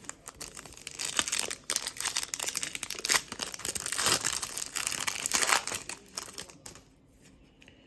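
Plastic wrapping on a trading-card blaster box crinkling and tearing as the box and its packs are opened, dying down about a second before the end.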